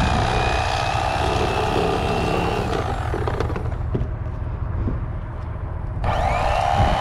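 Electric fillet knife buzzing steadily as it cuts crappie fillets. It stops about three seconds in, then whirs back up to speed about six seconds in, over a steady low rumble.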